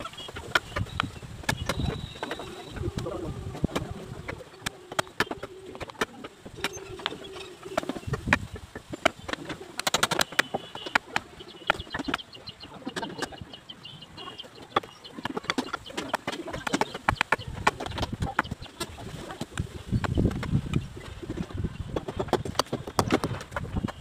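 Building-site work noise: frequent sharp knocks and clatter of wooden shuttering poles and bricks being handled, with birds calling in the background.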